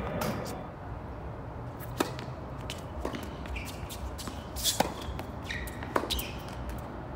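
Tennis rally on a hard court: rackets striking the ball, with sharp pops about two seconds in, a pair of pops near five seconds and another at six seconds, and short sneaker squeaks on the court surface in between.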